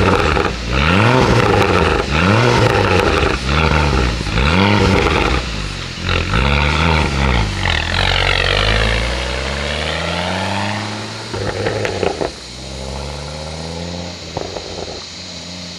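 Ford Focus XR5 Turbo's turbocharged five-cylinder engine being revved. About five quick blips rise and fall in pitch, followed by one longer rev that falls away. There are a few sharp crackles near the end before it settles to a lower steady note. The exhaust leak has been repaired, so it no longer sounds straight-piped.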